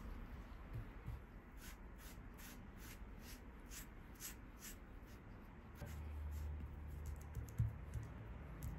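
Silicone pastry brush swishing over a sheet of bread dough, spreading butter in quick even strokes about two to three a second, with fainter, quicker strokes later. A single soft thump near the end.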